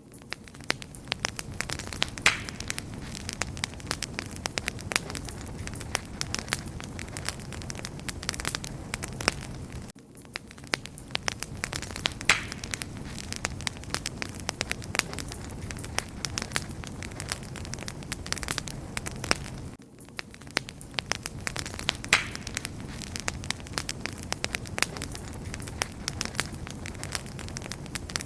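Wood fire crackling steadily, with many sharp pops and snaps over a low rumble of burning. The sound dips briefly twice, about every ten seconds.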